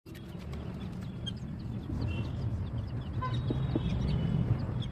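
Outdoor ambience: a steady low rumble with scattered short bird chirps and calls.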